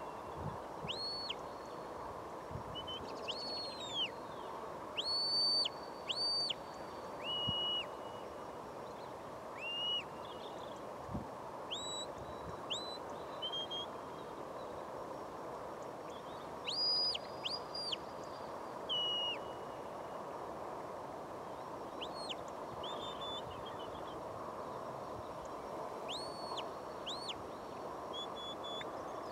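Shepherd's whistle commands to a working sheepdog: a long series of short, clear high-pitched whistle notes, some held flat, some sliding up or falling away, given in quick groups with short pauses between.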